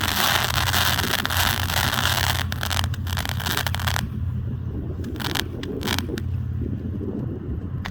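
Fireworks crackling densely for about four seconds, then a few separate sharp pops, over a steady low hum.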